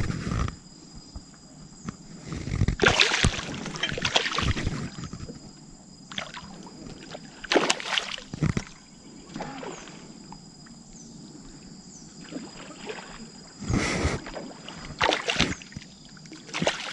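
Water splashing and sloshing in irregular bursts, the longest lasting a couple of seconds, over a quieter hiss.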